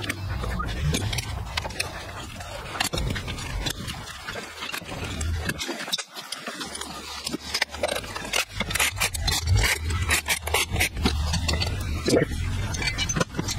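Hand tools and metal engine parts clinking and knocking as a Harley-Davidson Twin Cam 110 is unbolted and its cylinder head lifted off. Many sharp clicks, with a steady low hum underneath.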